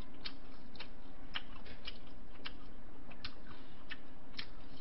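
Eating at the table with chopsticks: irregular light clicks and taps, about two or three a second, over a faint steady hum.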